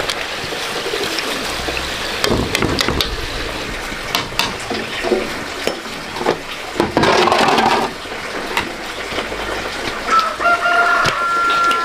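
A rooster crows once near the end, a call of about two seconds that drops in pitch as it ends. Scattered clicks and knocks and a short noisy rush come before it.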